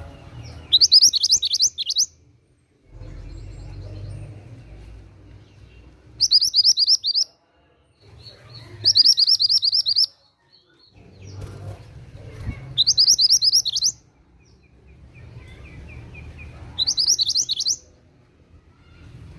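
Mantenan gunung songbird singing five short, fast trills of high chattering notes, each about a second long and several seconds apart, over a faint low rumble.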